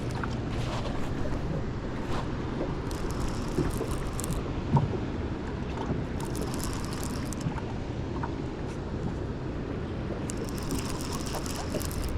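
Steady rushing of wind and river water, with three short spells of high hissing.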